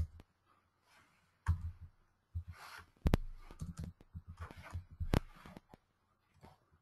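Computer keyboard keys and mouse clicks tapping, a scattered handful of short clicks, the sharpest about three seconds in and again about five seconds in.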